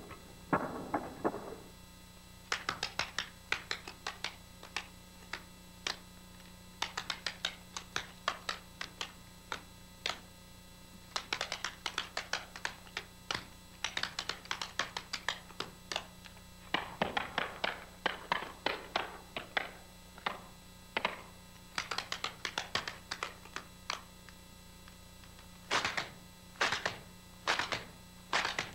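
Metal taps on tap shoes striking a wooden stage floor: quick, crisp clicks in rhythmic runs of steps separated by short pauses. A faint steady hum sits underneath.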